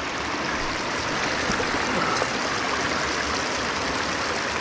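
Stream water running and falling over rocks, a steady rushing sound.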